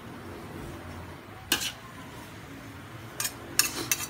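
Metal spatula clinking and scraping against a large wok as fried noodles are tossed: one sharp clink about a second and a half in, then a quick run of several more near the end.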